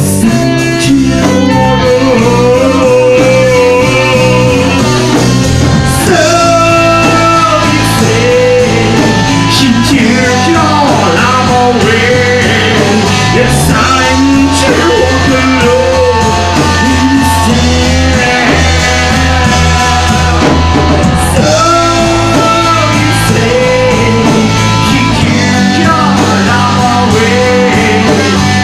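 Live band playing loud: electric guitar, bass guitar and drums, with a singer's voice over them. The bass holds steady notes that change every few seconds.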